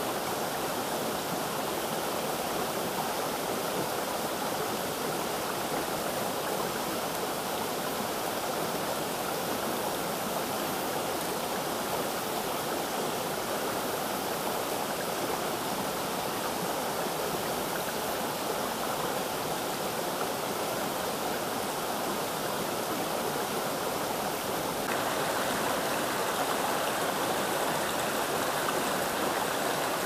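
Steady rush of a forest stream and waterfall flowing over rocks, growing a little louder near the end.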